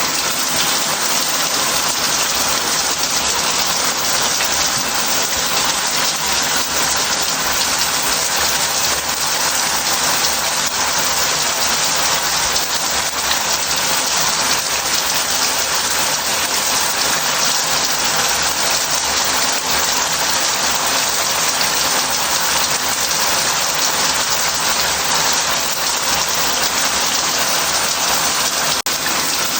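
Shower head running into a bath: a steady, even hiss of spraying and falling water.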